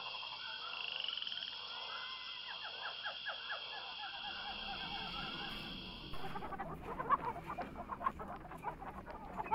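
Outdoor animal ambience: a steady high drone of calls with a quick run of repeated chirps. About six seconds in the drone stops and gives way to scattered short clucking calls and knocks.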